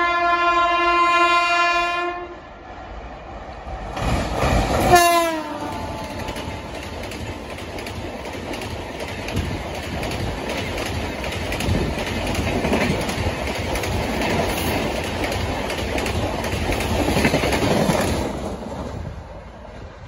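WAP-7 electric locomotive's horn sounding a long steady blast that stops about two seconds in. About five seconds in, the locomotive rushes past with a short horn note that drops in pitch. Then the express coaches pass at speed, their wheels clattering over the rail joints, and the sound fades near the end.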